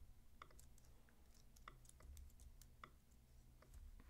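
Faint, irregular clicking of a computer keyboard and mouse, a dozen or so scattered clicks.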